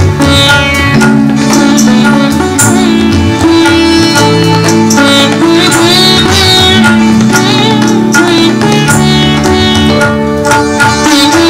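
Live ghazal music: a harmonium playing held chords while a man sings into a microphone, over hand-drum strokes.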